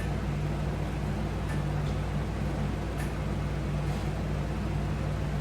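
Steady low mechanical hum with a faint hiss, and faint light ticks about every one and a half seconds.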